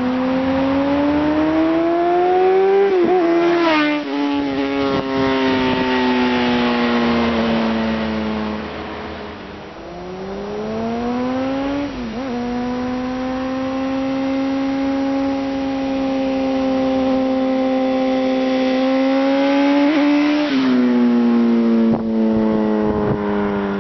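Honda CBR600RR's inline-four engine through a G&G stainless aftermarket exhaust, running at changing revs. The pitch rises for about three seconds, drops sharply, and sinks slowly; it then climbs again and holds steady for several seconds before dropping sharply once more near the end.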